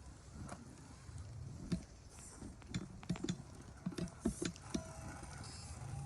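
Small-scale RC crawler working over the course: scattered plastic and rock clicks and knocks, bunched about three to five seconds in, over a low steady hum.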